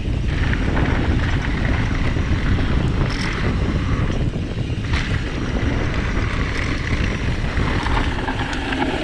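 Wind buffeting the microphone of a mountain bike's handlebar camera on a fast descent down a dirt trail, with the bike rattling over the bumps and a few sharp ticks along the way.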